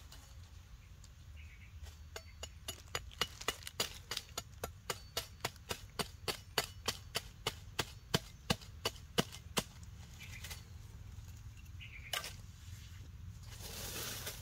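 Machete blade chopping and shaving a thin wooden stick, a steady run of sharp woody knocks about two or three a second that stops about two-thirds of the way through. A few single knocks follow, then a short burst of noise near the end.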